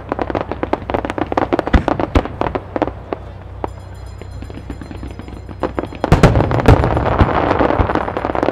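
Starmine fireworks display. Rapid crackling pops of many small bursts give way to a quieter stretch of about three seconds with a faint high whistle. About six seconds in, a heavy boom hits, followed by dense crackling for a couple of seconds, then scattered pops near the end.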